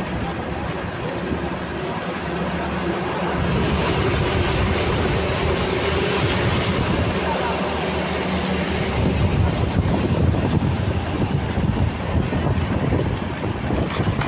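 Rumble and rush of travel heard from inside a moving vehicle, growing louder about three to four seconds in as traffic, including a Bharat Petroleum tanker, passes close by. A few sharp knocks sound around the ten-second mark.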